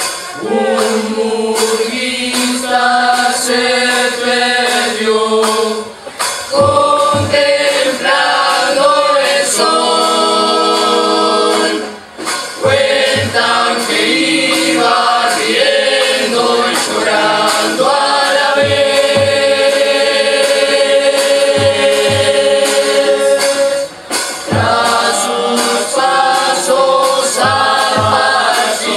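Uruguayan murga chorus singing in several-part harmony, the voices holding long notes with short breaks between phrases. Bass drum and cymbal strokes join about six seconds in.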